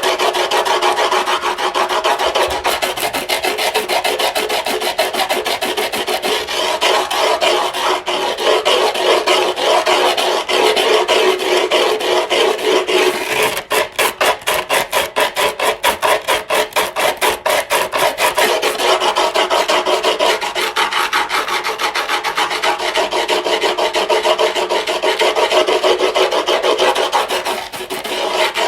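Griptape being filed: a continuous rasp of rapid back-and-forth strokes. For a few seconds around the middle the strokes come out more separate and choppy before running together again.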